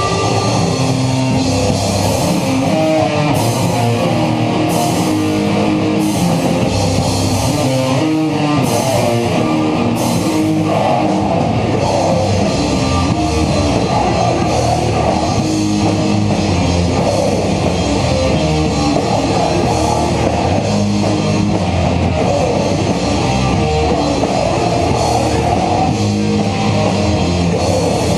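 A hardcore/thrash metal band playing live: distorted electric guitars, bass and drum kit, loud and dense, with cymbal crashes hit regularly in the first ten seconds or so.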